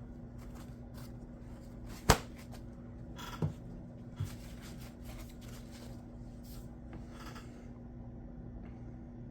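Knife edge being ground on a sharpening stone: short, scattered scraping strokes while a burr is raised at about 22 degrees per side, with a sharp click about two seconds in and two lighter knocks soon after.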